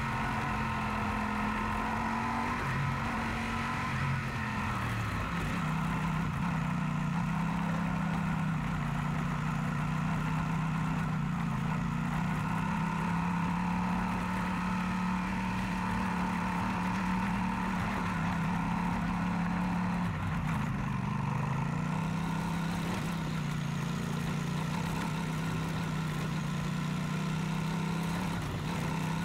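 Yamaha Super Tenere's parallel-twin engine running steadily under way, its note dropping a step about four seconds in, then dipping and picking back up about two-thirds of the way through.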